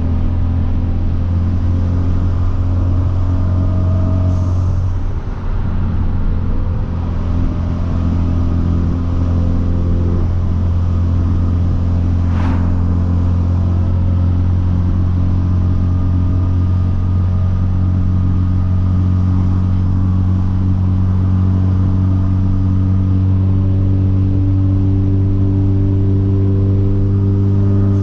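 Hyundai Veloster Turbo's 1.6-litre turbocharged four-cylinder, with a catless downpipe, droning steadily while cruising, with a brief easing-off about five seconds in, a single short click around the middle, and revs rising slightly near the end.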